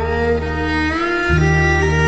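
Instrumental background music: a gliding melody over held bass notes, the bass changing about a second in.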